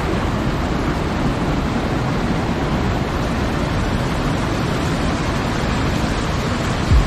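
Small waterfall cascading into a pool: a steady rush of falling and churning water.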